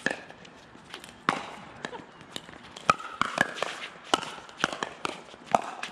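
Pickleball rally: a run of sharp pops from paddles striking the hollow plastic ball and the ball bouncing on the hard court, about two a second.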